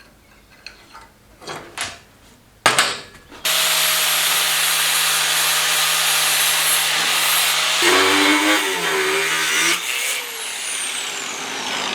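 A few knocks, then an angle grinder starts suddenly about three and a half seconds in and runs steadily against steel, cleaning up a fresh stitch weld. Its pitch wavers briefly as it is loaded, near the middle.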